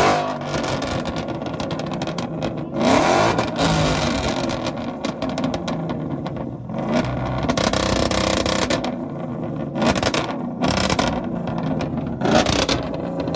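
Car engines running and revving, swelling louder several times.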